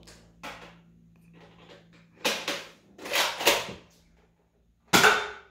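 Nerf blaster being handled and worked: a series of short plastic clacks and rasps, with a cluster a couple of seconds in and the loudest clack near the end.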